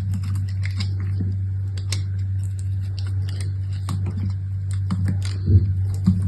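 Soap packaging being handled and opened: irregular small crinkles and clicks of wrapping, with a soft thud about five and a half seconds in, over a steady low hum.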